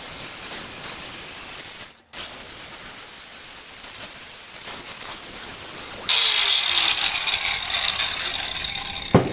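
Steady hiss, then about six seconds in a power tool starts up suddenly and runs loudly with a high whine for about three seconds, ending in a sharp knock.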